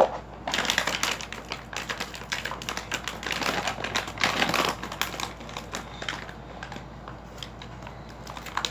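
Plastic packaging bag being cut open, the plastic crinkling and crackling in quick, irregular clicks, busiest in the first half and thinning out later.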